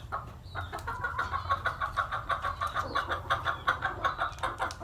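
Chicken clucking in a rapid, even run of short calls, about six or seven a second, starting about half a second in.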